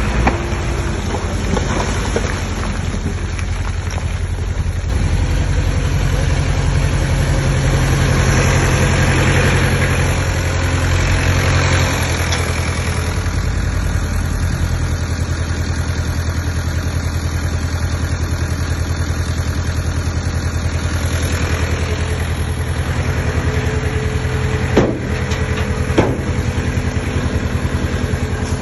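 Komatsu D20P bulldozer's diesel engine running steadily, with two sharp knocks about a second apart near the end.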